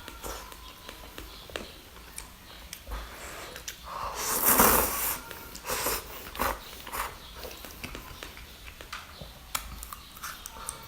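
A person eating close to the microphone: small wet mouth clicks and breathing, with a louder rushing burst of noise about four seconds in.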